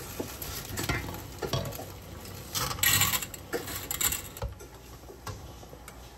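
Spaghetti being put into a steel pot of boiling water and stirred with tongs: irregular clinks and scrapes of metal against the pot over the bubbling water, with a brief rush of noise near the middle.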